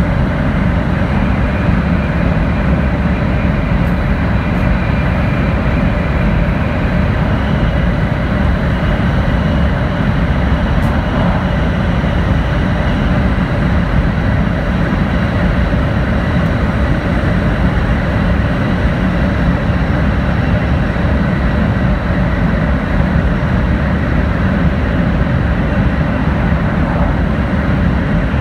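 Interior running noise of an N700-series Shinkansen train: a steady, dense low rush with a faint thin high tone over it.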